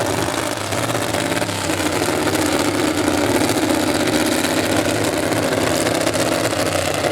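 Pickup truck engine running loud and steady, holding an even pitch.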